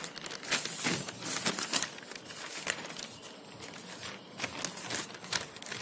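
Sheets of paper rustling and crinkling as they are handled and shifted, with irregular crackles that are densest in the first couple of seconds.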